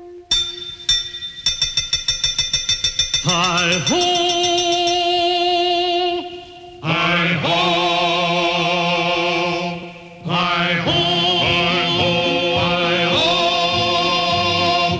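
Background music: a quick run of tinkling repeated notes, then voices holding long wavering notes together, with two short breaks.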